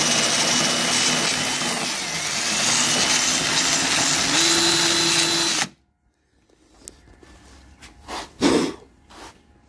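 Electric drill with a rounded abrasive tip grinding rust and body filler off a car's steel C-pillar; its pitch dips briefly about two seconds in, then the drill stops suddenly about six seconds in. Two short knocks follow near the end.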